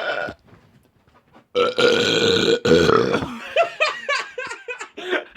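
A man's long, loud burp lasting about a second and a half, starting about a second and a half in and breaking briefly once near its middle.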